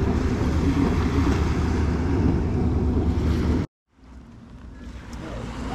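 Wind rumbling on the GoPro's microphone, with surf at the shoreline. The sound cuts out for a moment about two-thirds of the way through, then comes back quieter and builds up again.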